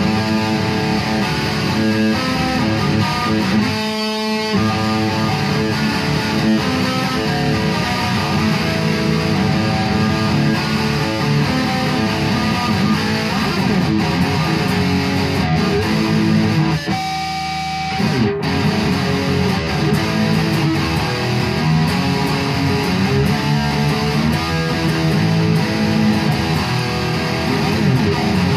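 Rebuilt 1966 Gibson Les Paul Custom electric guitar played plugged in: continuous strummed chords and riffs. About 17 seconds in, one chord is left ringing for about a second.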